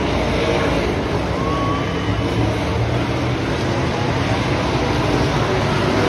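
A pack of dirt-track race cars running laps on the oval, their engines heard together from the grandstand as a steady, continuous din.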